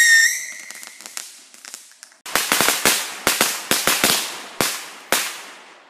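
Ground firework going off on a lawn: a whistle dies away, a few faint crackles follow, then a rapid string of about a dozen sharp bangs over some three seconds.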